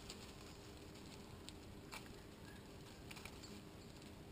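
Near silence: faint steady background hiss with a few soft, scattered clicks.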